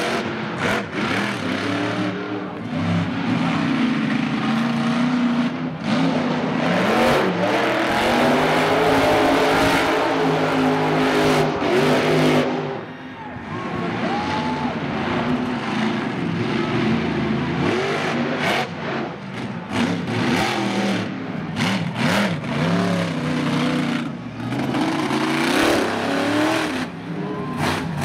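Monster truck engine revved hard again and again, its pitch sweeping up and down as the truck spins doughnuts and throws tyre smoke. About halfway through it briefly comes off the throttle, then climbs again.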